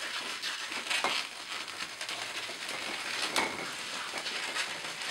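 Twisted latex modelling balloons rubbing and squeaking against each other as hands press and adjust them, with a couple of sharper squeaks, about a second in and past the middle.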